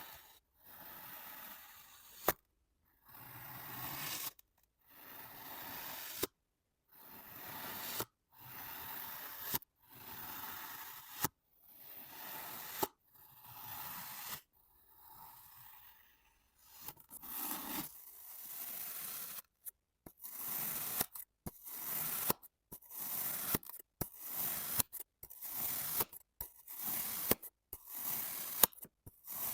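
Kinetic sand being cut over and over: each cut is a grainy scrape that swells and ends in a sharp click. The cuts come about every second and a half at first, then quicken to more than one a second in the second half.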